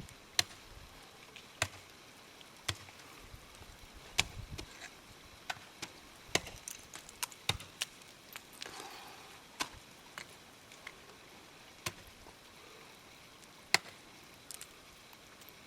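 Ice tools and crampons striking frozen waterfall ice: about a dozen sharp, irregular chops a second or two apart.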